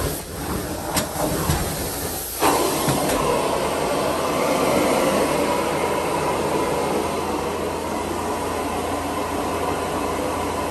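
Carpet-cleaning extraction equipment drawing suction through the hose and wand: a steady hiss with a faint whistle that starts suddenly about two seconds in, over the machine's constant low hum. A few knocks and clicks come before it.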